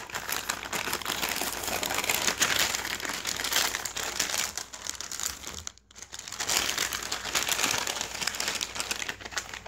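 Plastic packaging crinkling and rustling as a self-heating meal's food pouch is forced into its flameless heater bag, with a short pause a little past halfway.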